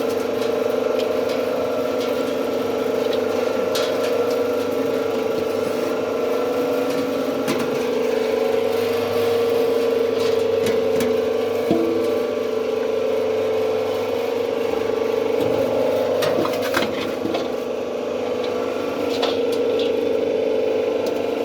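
Soap plodder machine running: a steady mechanical hum from its drive, with a few short clicks or knocks scattered through.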